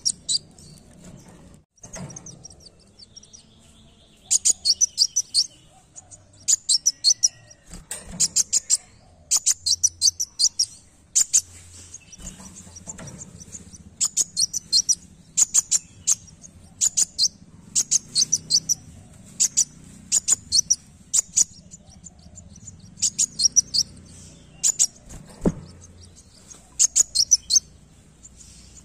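Caged sunbird singing: repeated bursts of rapid, high-pitched chirping notes, each burst about a second long, with short pauses between them.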